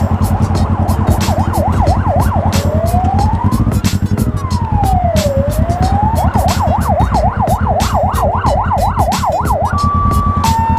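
Emergency vehicle siren cycling through its modes: a fast yelp, then one slow rising and falling wail about midway, the fast yelp again, and a two-tone high-low near the end.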